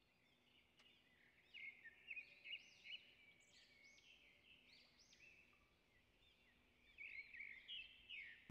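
Near silence, with faint bird chirps in two short spells: about a second and a half in, and again near the end.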